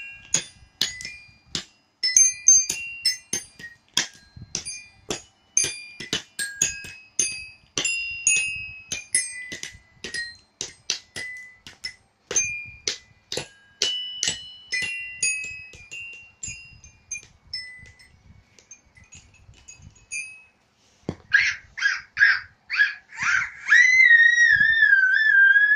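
Toy xylophone with coloured metal bars struck irregularly with mallets: single ringing high notes, two or three a second, thinning out past the middle. Near the end come a few short high squeaks, then a long high wavering whistle-like tone.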